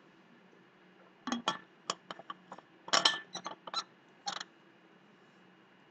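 Metal water bottle being handled and its cap closed: a run of about a dozen sharp clinks and clicks, bunched between about one and four and a half seconds in.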